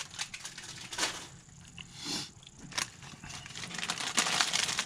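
Plastic packaging crinkling and rustling as fishing tackle is handled, with small clicks, going quieter for a moment in the middle before picking up again.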